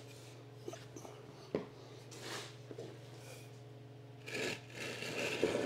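Wooden blocks knocking and scraping on a concrete floor as they are slid under a metal bandsaw stand's legs. There is one sharp knock about a second and a half in, and louder scraping near the end, over a steady low hum.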